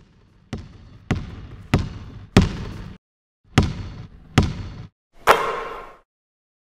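A basketball bouncing: four bounces about 0.6 s apart, a short pause, two more, then one broader, ringing hit about five seconds in.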